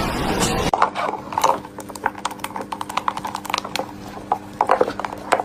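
Irregular clicks, knocks and scrapes of a hard clear plastic tub moving on a wooden table top, over a steady low electrical hum. It follows a short stretch of louder noise that cuts off abruptly a little under a second in.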